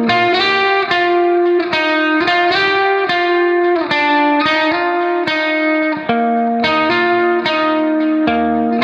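Background music: a plucked guitar with effects playing a melody of short notes, with no singing.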